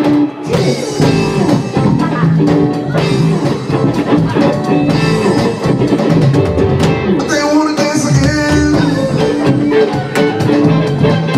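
Live funk band playing: electric guitar, electric bass, keyboards and a drum kit, with sung vocals over the groove.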